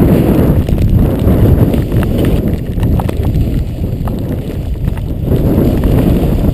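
Wind buffeting the microphone of a handheld action camera during a fast run down a ski slope, with the rough, uneven scrape of edges carving through snow.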